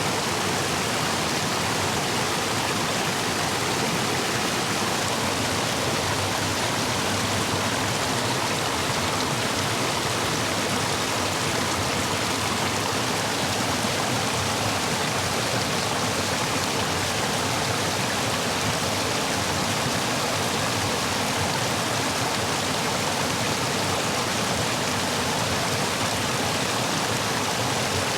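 Stream water rushing steadily over and between stepping stones, running high after days of heavy rain.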